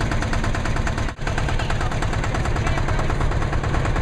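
Tractor engines running with a rapid, even putter of exhaust beats, broken by a brief dropout about a second in.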